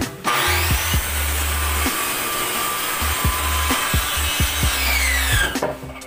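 Circular saw spinning up with a rising whine and cutting through a plywood sheet for about five seconds, then winding down with a falling whine near the end as the trigger is released. Background music plays underneath.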